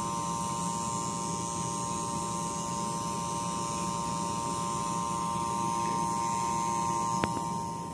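Steady machine hum with a high whining tone, broken once by a sharp click about seven seconds in.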